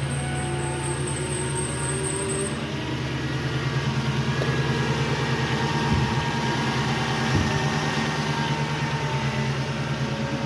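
2002 Ford F-150 engine idling steadily just after starting, running smoothly on a freshly refilled cooling system after a thermostat replacement. A faint high whine fades out in the first couple of seconds.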